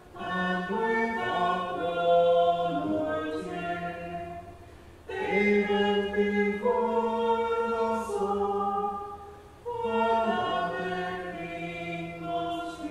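Choir chanting the sung psalmody of the Vespers office unaccompanied, in long held phrases with short breath pauses about five and ten seconds in.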